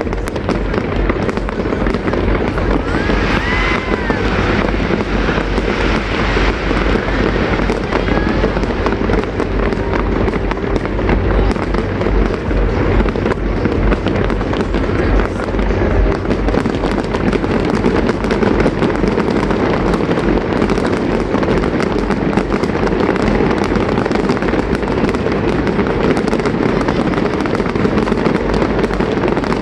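Aerial fireworks display going off nonstop: a dense, continuous stream of bangs and crackles at a steady loud level.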